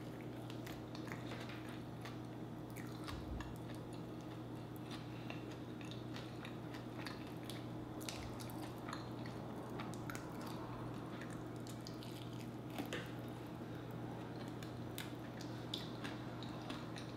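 Close-up eating of sauced chicken wings: wet, squishy chewing and biting, with many small lip and mouth clicks, over a steady low hum.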